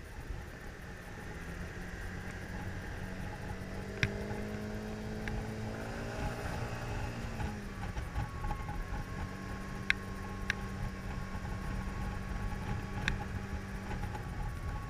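Kymco scooter engine running under way, heard with wind and road noise. About halfway through the engine note sinks and then picks up again, and a few sharp clicks stand out.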